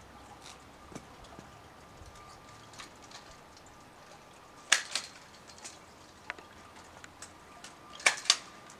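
Pruner blade snipping through pear branches: two sharp snaps a little past the middle and two more near the end, with faint ticks from the tool and branches between them.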